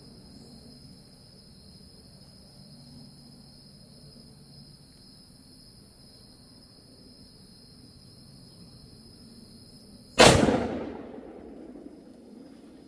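A single rifle shot at a feral hog about ten seconds in, loud and sudden, with an echo that dies away over about a second and a half. Before it, steady night insects chirp in two high-pitched bands, and the lower of the two stops at the shot.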